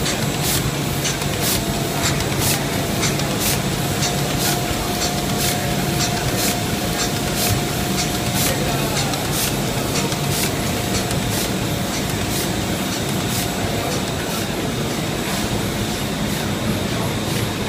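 Ding Shung FM-1050 film laminating machine running: a steady mechanical drone with a low hum and an even high clicking about twice a second. A faint thin whine is held for several seconds in the middle.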